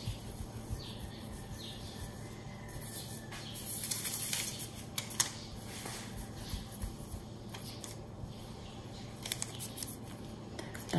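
Soft rubbing and rustling of a hand rolling a ball of steamed-bun dough on a silicone pastry mat, with a louder rustle about four seconds in, a sharp click just after it, and a few light clicks later.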